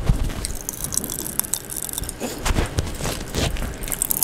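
Cola-flavoured popping candy crackling and fizzing in the mouth: a run of small irregular pops and clicks, along with chewing and mouth sounds.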